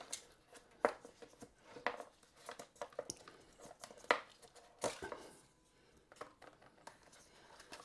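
Cardboard packaging handled by hand: a cardboard tray and insert lifted and slid out of a box, giving a string of sharp taps and scrapes with light rustling between them.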